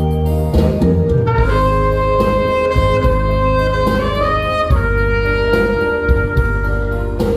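Saxophone playing a trot melody in long held notes that slide up into each new pitch, over a low accompaniment.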